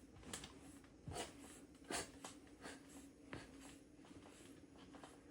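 A few faint, sharp clicks and soft knocks during a chiropractic adjustment on a treatment table, the strongest about one and two seconds in, over a low steady hum.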